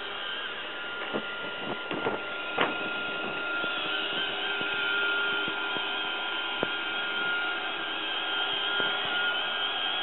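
Roomba robot vacuum running on a hardwood floor: a steady motor and brush whine, with a few sharp clicks and knocks, the loudest about two and a half seconds in.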